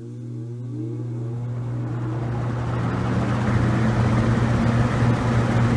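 A 1950s Roto-Aire 07104 two-speed, seven-blade box fan starting up on high: a steady motor hum with a whir that rises in pitch as the blades spin up, and a rush of air that grows louder over about three seconds and then holds steady at full speed.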